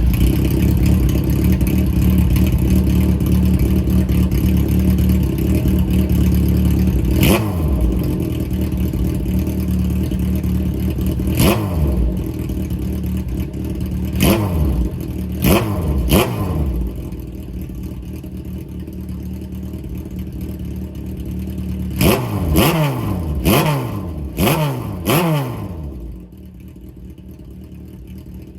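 Kawasaki Z500 inline-four engine running through a short exhaust with a bullet silencer, fed by TK carburetors. It idles just after starting and is blipped about a dozen times, each rev rising sharply and dropping straight back. The idle settles lower about two-thirds of the way through and again near the end.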